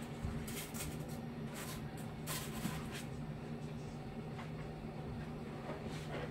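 Brief rustles and light handling noises, mostly in the first half, as a paper towel is laid under the paint cup. A steady low hum runs underneath.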